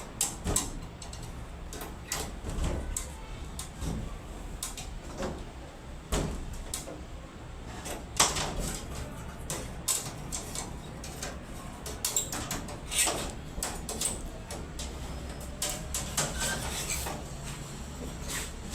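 Irregular clicks, knocks and scrapes from hands and tools working on an air conditioner installation, over a steady low hum.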